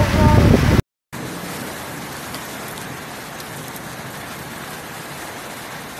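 A loud, wind-buffeted sound with a voice in it cuts off abruptly under a second in. After a brief dead gap comes a steady, even hiss, like rain falling.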